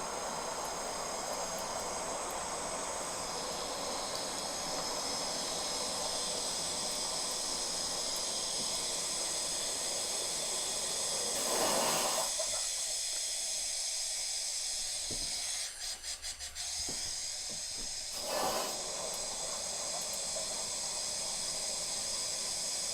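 Water rushing through the supply line into an A.O. Smith water heater tank as it refills, a steady hiss. The deeper part of the rush falls away for several seconds in the middle, with a brief swell just before and just after.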